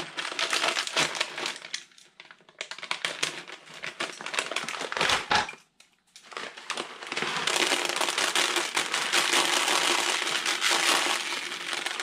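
Plastic bait bag crinkling and small dry fishing pellets rattling as they are poured into a plastic bucket and worked through the groundbait mix by hand. The sound breaks off briefly twice, then runs as a dense continuous rattle from about halfway through.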